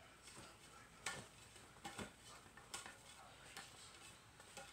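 Wooden bo staff spun in the hands: about six short swishes and taps at uneven intervals as it whips round and passes from hand to hand.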